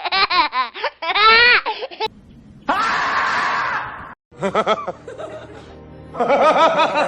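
A string of short laughter sound effects cut one after another: quick rising-and-falling laughs at the start, a noisier burst of mixed laughter in the middle, a brief silent cut, then more laughing near the end.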